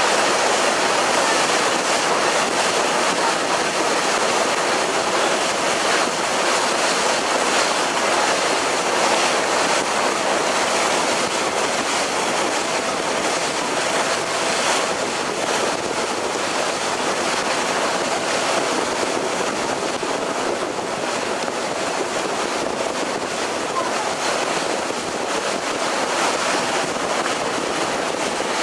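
Steady rush of water and wind from a moving passenger ferry under way on open sea, with a faint steady hum underneath.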